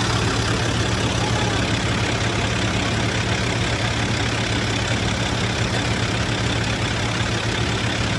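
Heavy farm machinery's diesel engine running steadily at a constant speed, an even low hum that doesn't change in pitch.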